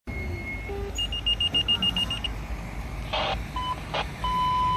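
Fire dispatch alert tones over a radio: two short steady tones at different pitches, then a fast train of high beeps for about a second, then a long steady tone starting near the end, with two short bursts of hiss between them. These tones come before a dispatcher's call.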